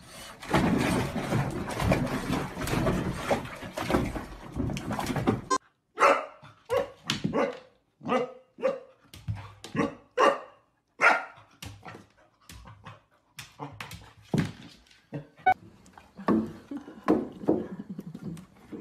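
A dense rushing, scrabbling noise for the first five seconds or so, then a golden retriever puppy barking at its own reflection: a long run of short, high barks, about one or two a second.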